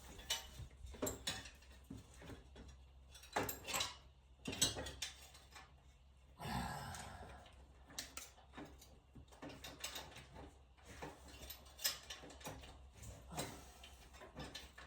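Metal hand tools clinking and knocking on and off: a socket wrench and extension handled while changing spark plugs, with a longer scrape about six and a half seconds in.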